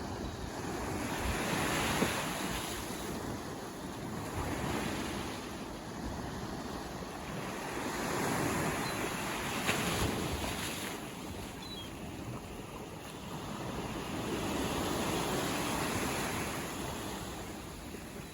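Ocean surf: waves breaking and washing ashore, the rush rising and falling in slow surges every several seconds.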